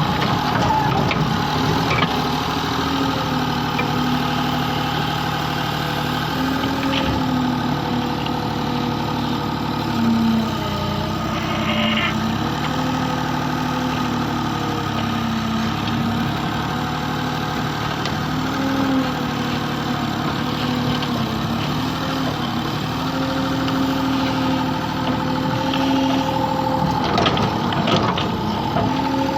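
Excavator's diesel engine running steadily, its pitch rising and falling a little every few seconds as the load changes, with a few short knocks.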